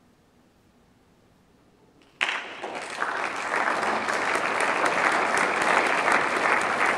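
Near silence as the hall waits, then audience applause breaks out suddenly about two seconds in and builds to steady clapping.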